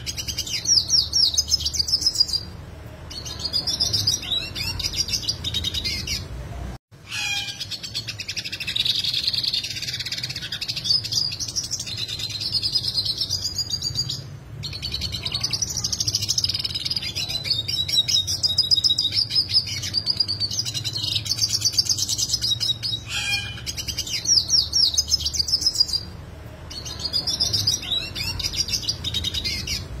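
Yellow siskin singing a long, complex song of rapid twittering with sharp, fast trills ('rolls'), broken by a few brief pauses, over a faint low hum.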